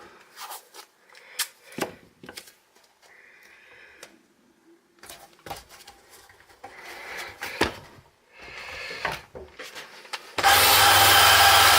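Scattered clicks and knocks of tools and parts being handled, then about ten seconds in a small high-speed power tool switches on suddenly and runs steadily with a whine.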